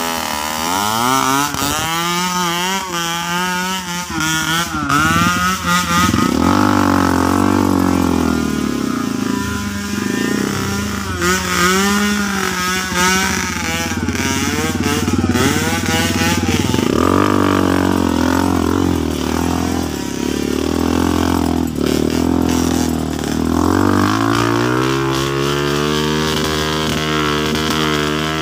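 Dirt bike engine being revved up and eased off again and again, its pitch climbing and dropping, while the bike is ridden along a muddy, slippery trail.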